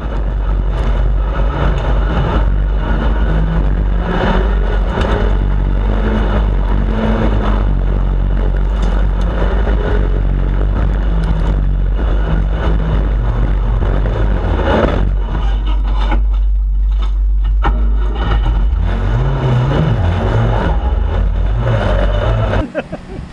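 Off-road racing buggy's engine heard from onboard, revving up and falling back again and again as it is driven hard, with heavy wind rumble on the microphone. The sound cuts off abruptly near the end.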